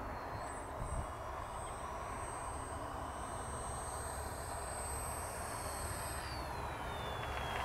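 Electric motor and propeller of an FMS Blue Jay RC trainer plane on its landing approach, a faint high whine that glides down in pitch near the end, over steady wind noise on the microphone.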